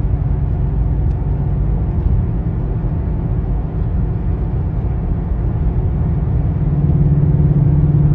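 Steady low rumble of a car in motion, heard from inside the cabin, with a low engine hum that grows louder about seven seconds in.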